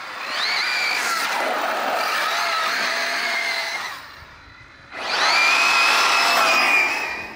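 Arrma Mojave 6S BLX 1/7-scale RC desert truck's brushless motor and drivetrain screaming under hard throttle, with tyre noise on pavement. The whine climbs in pitch, holds, and fades around four seconds in. A second, louder run rises about five seconds in and dies away just before the end.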